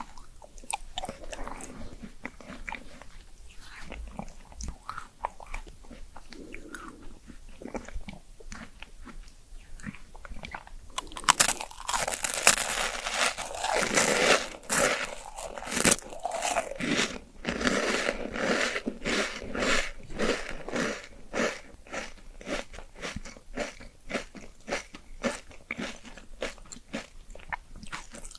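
Close-miked eating of chocolate and pandan treats: soft chewing at first, then from about eleven seconds in a long run of loud, crisp crunching bites and chewing.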